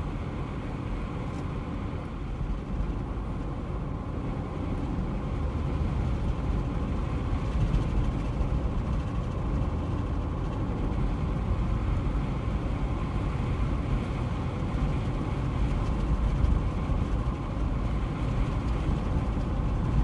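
A car driving along a road: a steady low rumble of engine and tyre noise that grows a little louder about five seconds in.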